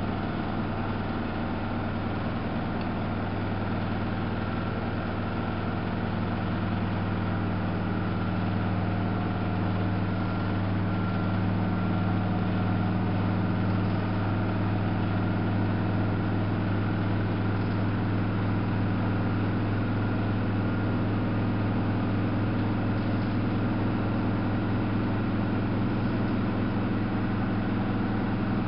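Samsung WF71284 front-loading washing machine running, a steady mechanical hum from its motor and drum that grows slightly louder about a third of the way in.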